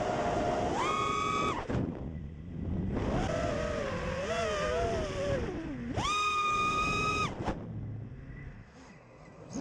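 FPV quadcopter's electric motors and propellers whining, the pitch following the throttle. There are two short punches up to a high, held whine, about a second in and again around six seconds, with a wavering whine between them that slides down. Air rushes over the microphone under it, and the whine drops away near the end.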